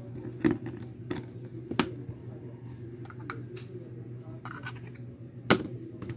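Irregular plastic clicks and taps from headphone ear-cup housings being handled, pressed together and set down on a plastic-covered table, the loudest knock about five and a half seconds in, over a steady low hum.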